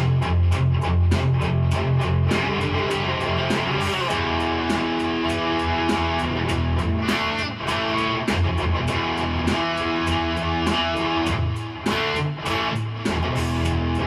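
Electric guitar played through a Boss Katana amp on its highest-gain "Brown" (brown-tone) setting: heavily distorted, saturated playing that mixes quickly picked chords with held, ringing notes.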